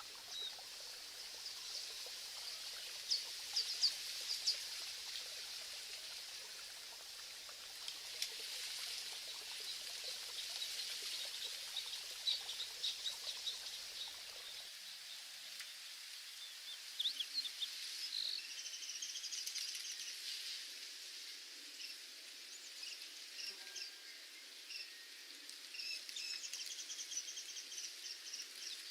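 Nature ambience: birds chirping in short scattered calls over a steady high hiss. A faint low rumble underneath drops out about halfway through.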